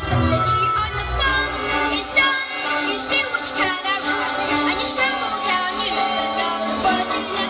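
A boy singing a musical-theatre solo over a recorded backing track, amplified through stage PA speakers.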